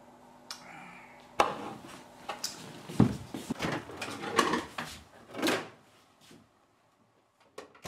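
Rummaging in a refrigerator: a sharp knock about a second and a half in, then a run of irregular knocks and clatters as containers and bottles on the shelves are moved about. It stops about six seconds in, leaving a few faint ticks.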